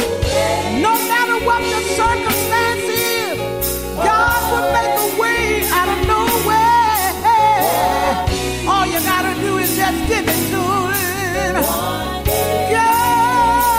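Gospel song: a singer holding long, wavering notes over a band with a steady drum beat.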